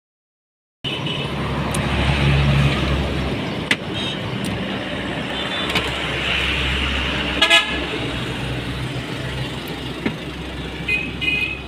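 Street traffic: a steady engine and road rumble with several short vehicle horn toots, the loudest about halfway through.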